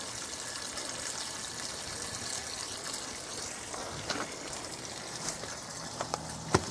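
Garden hose running: a steady rush of water, with a couple of sharp clicks near the end.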